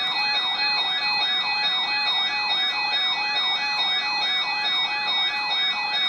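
Weather radio receiver's alert siren going off, signalling that a warning has been received: a rapid, repeating rising-and-falling warble, about three sweeps a second, over steady higher tones.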